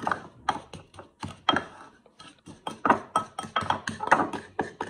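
Wooden spatula scraping and knocking against a ceramic bowl while stirring a mixture, in quick irregular strokes, a few each second.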